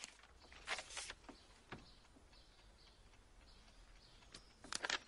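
Soft rustling of paper documents being handled, in two short bursts: about a second in and again near the end.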